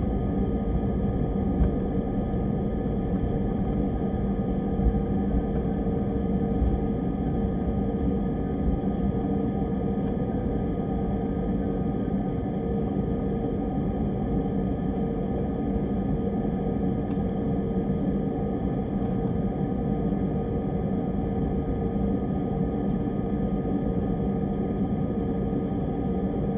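Steady cabin drone inside a jet airliner taxiing after landing: engine and air-system noise with several steady humming tones running underneath.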